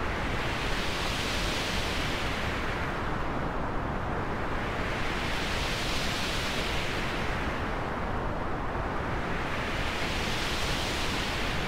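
Transition sound effect: a steady rush of noise that slowly swells brighter and fades duller, like a filter-swept whoosh. It is brightest about two seconds in and again about six seconds in, and brightens once more near the end.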